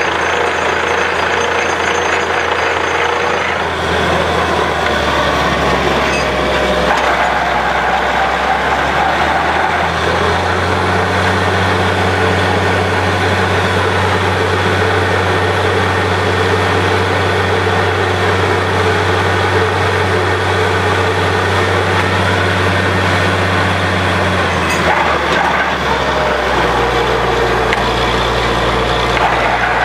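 Borewell drilling rig running under load, a steady mechanical din over a low engine drone that shifts in pitch a few times.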